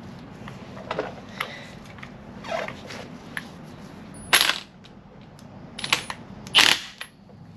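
Metal tools and parts being handled: a series of separate clicks and clatters, the two loudest about four and a half and six and a half seconds in.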